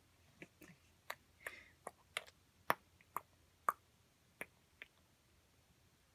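A child clicking her tongue: about a dozen sharp, separate clicks at an uneven pace, roughly two a second.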